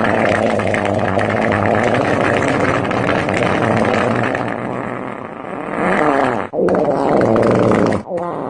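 A long, raspy comedic farting and pooping sound effect with a low rumbling pitch, breaking off briefly about six and a half seconds in and again near the end.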